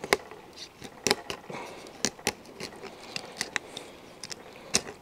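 Fillet knife cutting along a gar, crunching and clicking against its bony, armor-like scales: a string of sharp, short clicks at irregular intervals.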